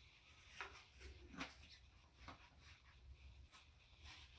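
Near silence: room tone with a few faint, short ticks and rustles of handling.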